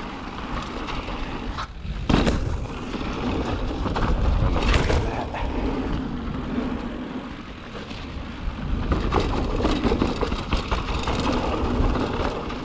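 Mountain bike riding fast downhill on a muddy dirt trail: steady rushing wind noise on the camera mic over the tyres on dirt, with the bike rattling and clicking over bumps. A short lull, then a loud knock about two seconds in.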